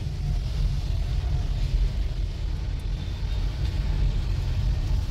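Fiat Argo heard from inside the cabin while driving on a wet road: a steady low rumble of engine and tyres under an even hiss of water washing over the windscreen.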